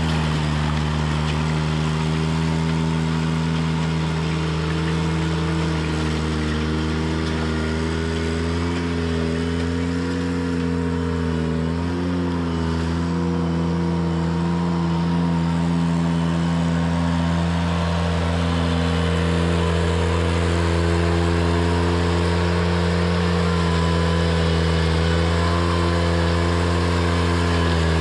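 Ventrac 4520 compact tractor engine running steadily, its pitch wavering briefly about a third of the way in before settling again.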